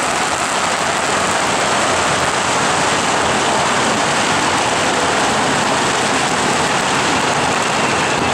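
A long string of firecrackers going off: a dense, unbroken crackle of rapid pops.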